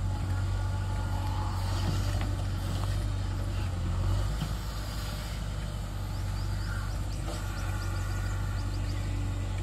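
JCB 3DX backhoe loader's diesel engine running steadily under hydraulic load while the backhoe digs and swings, its low note shifting slightly about four seconds in as the bucket dumps.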